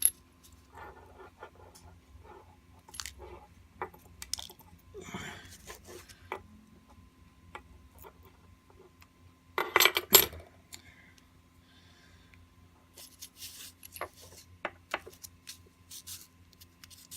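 Small metal clicks and clinks from an American Lock 5200 padlock being taken apart by hand, as its tiny pin-tumbler pins and parts are tipped out and handled. About ten seconds in there is a louder, brief metallic rattle, and a quick run of sharp clicks follows near the end.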